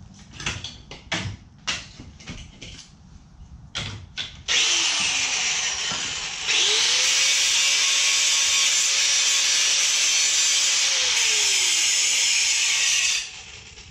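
A few sharp knocks, then a handheld angle grinder grinding steel from about four seconds in, cleaning up a broken tab before it is welded. Its motor note rises and holds steady, then winds down, and the grinding stops shortly before the end.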